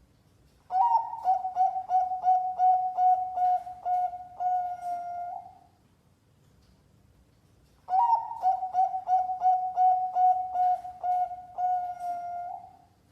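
Contest-class zebra dove (perkutut) cooing: two song phrases about seven seconds apart, each a quick run of short repeated notes that ends in a longer held note.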